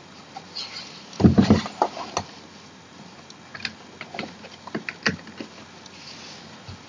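Handling knocks and small clicks of office chair parts being fitted together during assembly: a cluster of louder knocks about a second in, then scattered light clicks and taps.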